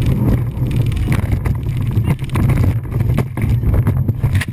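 Fountain powerboat's engines running at speed, with wind rushing over the microphone and the hull banging several times as it slams through a large wake.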